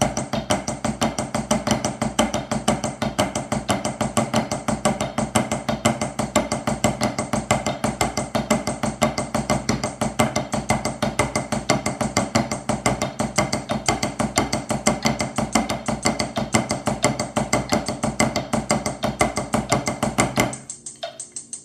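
Drumsticks playing Swiss Army triplets as steady sixteenth notes at 90 BPM, with a flam on the last sixteenth of each bar. The rapid, even strokes stop about a second before the end.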